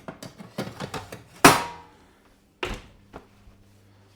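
Light clatter and clicks of a metal oven tray being handled and slid in, then a loud thud with a short ring about a second and a half in as the oven door shuts, and one more knock shortly after.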